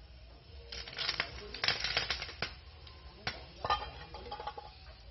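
Aluminium pot lid lifted off a pot and set down: a run of metallic clinks and clatters, then a sharper knock near the end that rings briefly.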